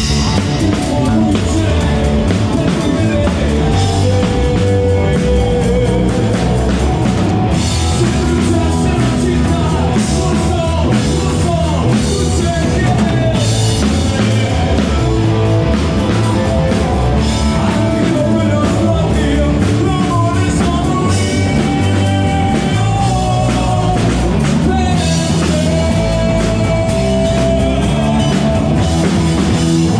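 A rock band playing live: drum kit, bass and guitar, with sung vocals.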